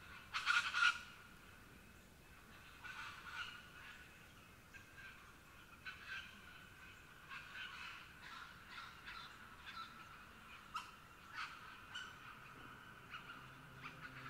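Birds calling in a series of short calls, the loudest cluster in the first second. A low held tone fades in near the end.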